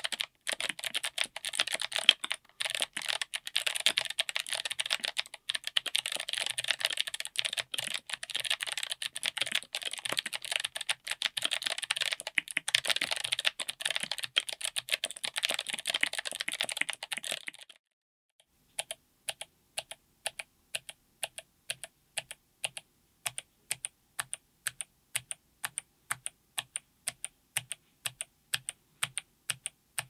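Fast typing on a mechanical keyboard with Kailh Crackle Ice clicky switches (click-bar Box switches, full POM housing) under SA-profile ABS keycaps, on an FR4 plate in an aluminium case. The typing gives a dense run of crisp clicks. After a short pause about 18 seconds in, single keystrokes follow at an even pace, about two a second.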